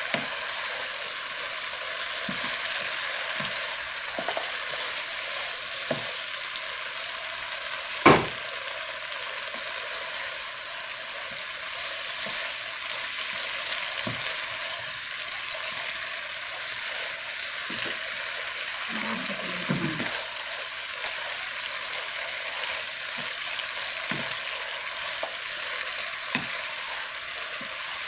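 Sliced okra, potato and tomato sizzling in a frying pan with a steady hiss, stirred with a wooden spatula that knocks and scrapes against the pan every second or two. One sharp, louder knock about eight seconds in.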